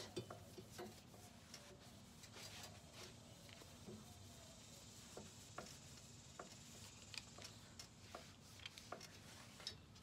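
Near silence: faint rubbing with scattered light clicks as a car wash sponge wipes bonding primer across the metal side of a mini refrigerator.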